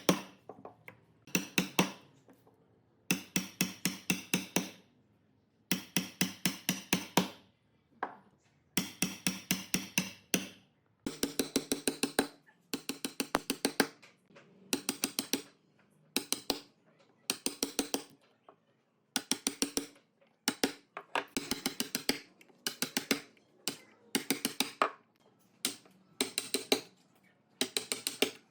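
Bursts of rapid sharp knocks, about six to eight a second, each burst lasting a second or so with short pauses between, with a ringing tone under the strikes.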